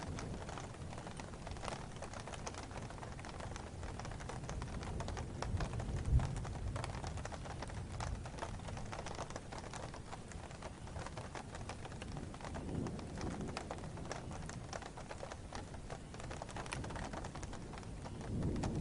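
Steady rain falling, with many individual drops ticking sharply on a surface. Low rumbles of thunder swell about six seconds in and build again near the end.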